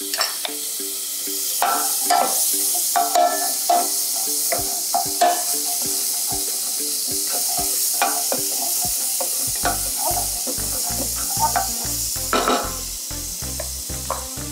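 Butter sizzling as it melts in a hot pan, stirred with a wooden spoon. Background music plays throughout, and a bass beat comes in about two-thirds of the way through.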